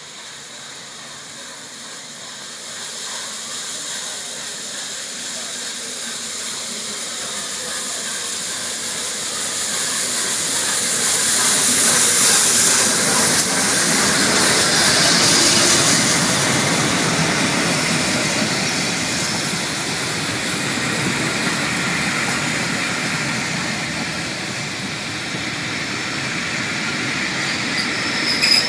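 Steam locomotive LNER A1 Pacific 60163 Tornado coasting slowly into the station with a steady hiss of steam. The sound grows louder as it approaches and is loudest as the engine passes, about halfway through. After that comes the lower rumble of its coaches rolling by.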